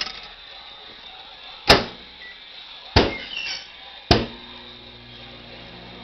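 A microwave oven being closed and started: three sharp knocks about a second apart. After the last knock the oven starts running with a steady low hum.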